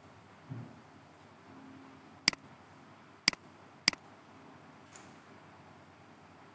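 Three sharp computer mouse clicks, the second and third about a second and a little over half a second apart, over faint room hiss, with a soft low thump shortly before them.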